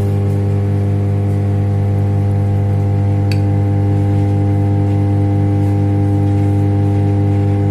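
Loud, steady electrical hum: a low tone with a row of overtones and a faint regular flutter beneath it, with one small click about three seconds in.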